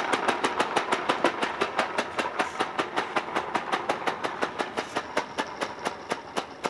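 Small 3D-printed four-stroke compressed-air engine on an RC car running in quick sharp puffs, fed from a 2-litre bottle of compressed air. The puffs come about seven a second at first, slowing to about four a second and growing fainter as the car pulls away.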